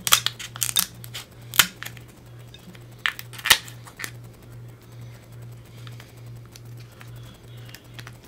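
Kitchen shears snipping through king crab shell: a run of sharp snips and shell cracks in the first few seconds, the loudest about one and a half and three and a half seconds in, then only faint clicks.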